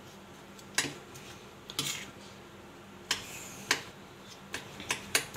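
Kitchen knife chopping strawberries on a marble countertop: sharp taps of the blade striking the stone, a few spaced strokes that come quicker near the end.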